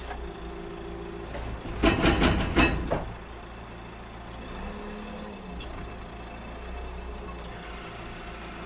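Wheel loader's diesel engine running steadily, with a loud burst of rattling and knocking about two seconds in that lasts around a second.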